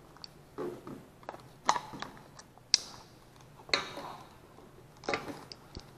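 Scattered sharp clicks and small knocks, about one a second, of slip-joint pliers and hands working a stuck rubber fuel line off a small engine's fuel tank.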